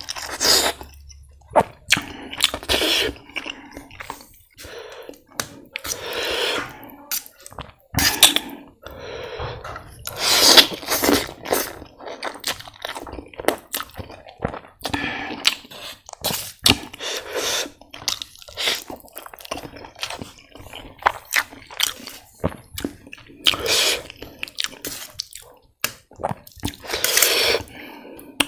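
Close-miked eating of ramen noodles: repeated slurps and wet chewing, with short mouth clicks between them.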